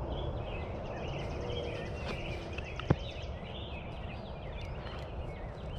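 Spring woodland ambience: songbirds chirping and trilling over a steady low background rumble, with a single sharp click about three seconds in.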